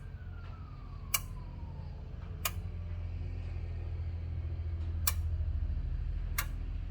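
Power Stroke diesel fuel-injector solenoids clicking one at a time during an injector buzz test, a sharp click about every 1.3 s with one click missing from the series: that injector is not opening and is suspected of a burnt coil. A steady low hum runs underneath.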